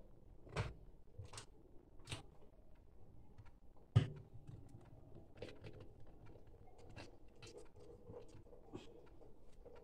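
Light clicks and taps of plastic bottles and a plastic cap being handled on a kitchen counter, with one sharper knock about four seconds in.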